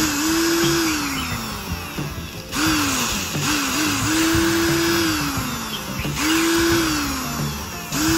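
A small electric power tool run in short bursts, about four times. Each time its motor pitch climbs quickly as it spins up, holds briefly, then sinks slowly as it slows. Background music plays throughout.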